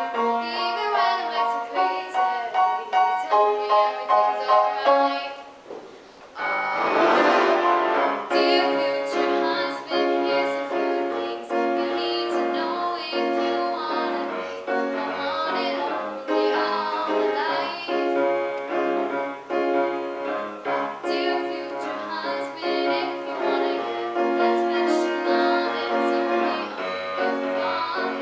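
A girl singing a song over piano backing music. The music drops briefly about five seconds in, then swells back in fuller.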